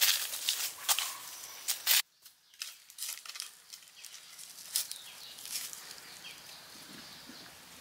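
Crunching and rustling of dry leaves and loose soil underfoot as someone climbs a bank, loud and crackly for about two seconds, then cutting off abruptly to quieter, scattered rustling of leaf litter and handling around a wicker basket.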